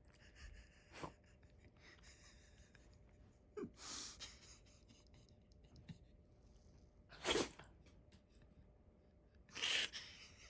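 Shiba Inu sneezing several times in short, sharp bursts, the loudest about seven seconds in and another near the end.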